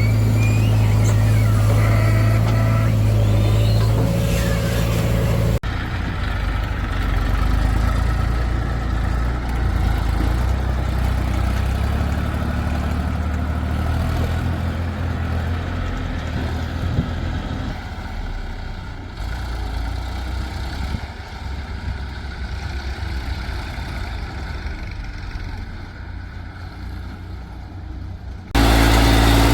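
Diesel engines of heavy machinery running, a backhoe loader and a tractor, with a low steady hum whose character changes abruptly about five seconds in and again near the end.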